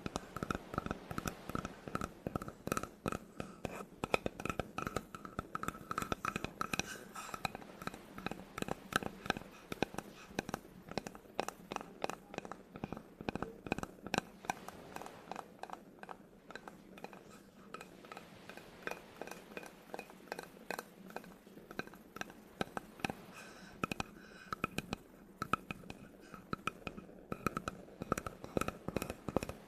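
Fast, continuous tapping and scratching on wood, with a faint ringing pitch behind the taps.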